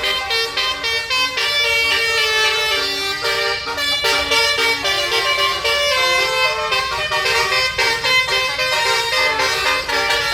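Indonesian tour bus's 'basuri' musical air horn playing a fast telolet melody, with one held note after another.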